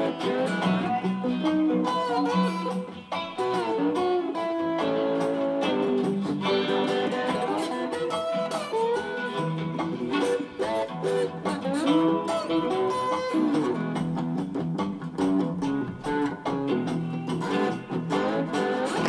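Blues instrumental on acoustic guitar and slide guitar: a repeating bass line under slide notes that glide up and down in pitch.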